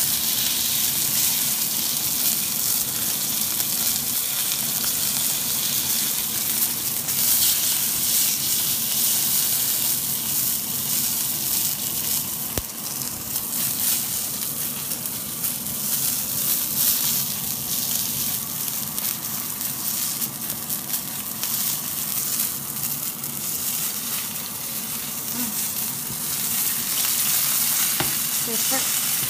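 Rump steak sizzling in oil in a hot cast-iron pan: a steady frying hiss dotted with crackles.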